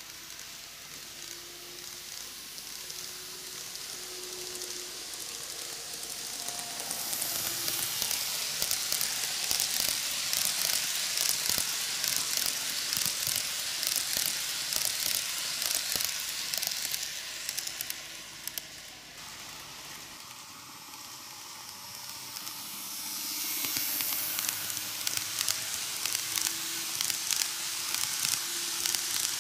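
N-gauge model train (a KATO ED79 electric locomotive pulling ten passenger cars) running on curved canted track. The small metal wheels on the rails make a steady rattling hiss full of fine rapid clicks. It grows louder as the train comes close and passes, eases briefly about two-thirds of the way through, then rises again.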